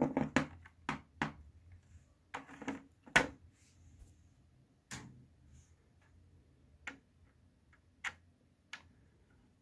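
The plastic casing of a Huawei EchoLife HG8245H fibre router clicking and knocking at irregular intervals as it is handled and set down on a plastic mat. The sharpest knock comes about three seconds in.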